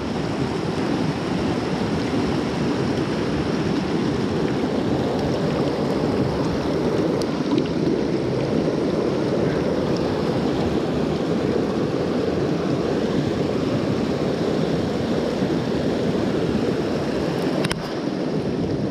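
Fast mountain creek rushing over rocks through a whitewater riffle: a steady, even rush of water.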